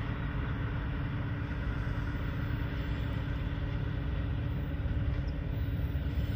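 Diesel locomotive of an approaching freight train, its engine a steady low drone with a hum.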